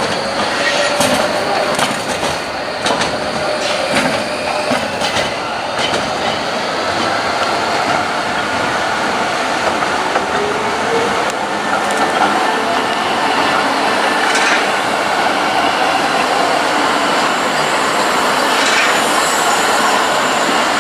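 Tram running on its rails: steady running noise with a faint whine that drifts in pitch, and a series of sharp clicks in the first few seconds.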